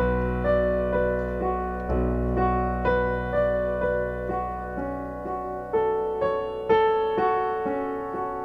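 Slow piano music, a note or chord struck about every half second.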